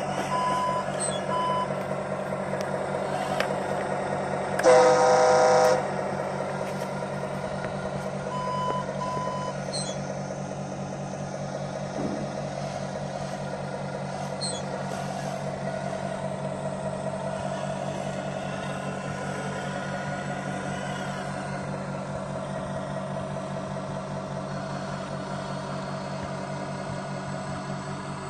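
Remote-control model dump truck's sound unit playing a steady simulated truck engine, with short reversing beeps near the start and again about 8 seconds in. A loud horn blast about 5 seconds in lasts about a second and is the loudest sound.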